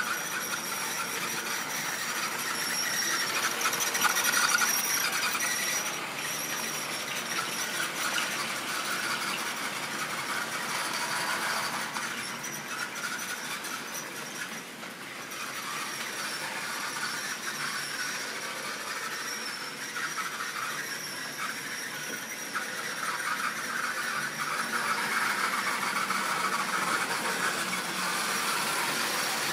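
Model railway train running around curved track: a steady rolling rattle of small wheels on the rails with a thin high-pitched squeal, clearest in the first third and getting a little louder towards the end.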